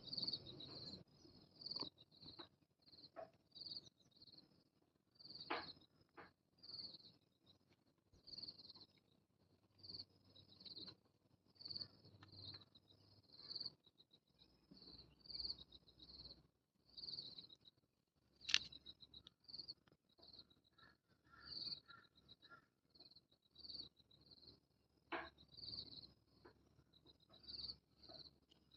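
Cicada calling: a short, high chirp repeated steadily a little more than once a second, with a few sharp clicks among the calls, the loudest about two-thirds of the way through.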